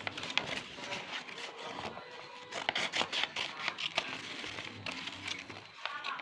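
A sheet of paper handled close to the microphone: irregular rustling and crinkling with small scrapes and ticks.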